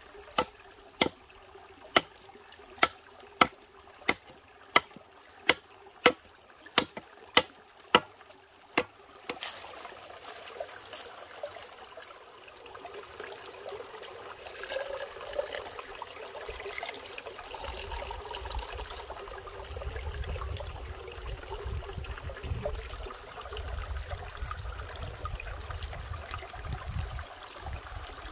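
Machete blade striking a green bamboo tube about a dozen times at an even pace, roughly one and a half strikes a second, as it is cut open. Then water trickles and splashes out of the opened bamboo into a bamboo cup, over a low rumble in the second half.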